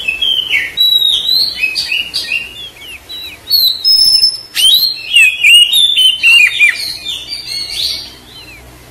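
Oriental magpie-robin (kacer) singing: a fast, varied run of whistled notes, many sliding up or down, with a few sharp high notes. The song stops about eight seconds in.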